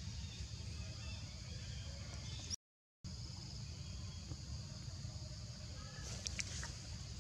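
Forest ambience: a steady high insect drone over a low rumble, cut by a brief dropout to total silence about two and a half seconds in, with a few short sharp clicks and high chirps about six seconds in.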